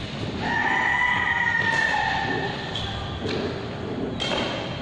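Badminton racket striking shuttlecocks in a large echoing hall, two sharp hits about two and a half seconds apart, with footfalls on the court. In the first half a long drawn-out call, falling slightly in pitch, sounds over them.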